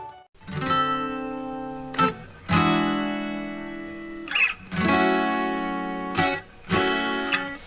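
Strummed acoustic guitar chords opening a pop song, a new strum about every second or two, played back through a TaoTronics Bluetooth speaker under test.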